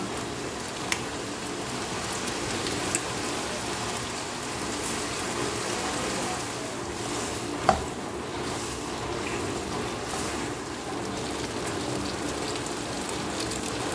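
Rice vermicelli sizzling steadily in a wok as it is stir-fried, with a few sharp knocks, the loudest about eight seconds in.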